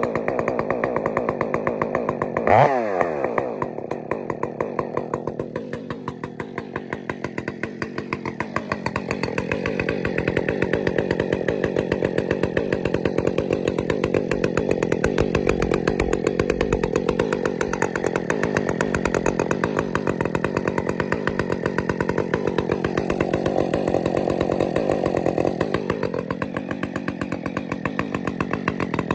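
Husqvarna 562 XP Mark II two-stroke chainsaw engine running through a Steadfast Forestry Products aftermarket muffler, shortly after a cold start. About two and a half seconds in it gives one sharp rev that falls away quickly. It then runs at a lower speed, picks up to a louder steady run from about ten seconds in, and eases off again near the end.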